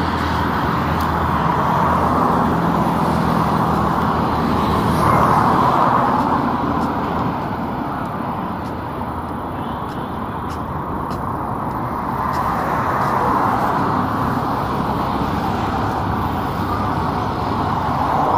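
Continuous road traffic noise, swelling and fading over a few seconds at a time as vehicles pass, with a low engine hum in the first couple of seconds.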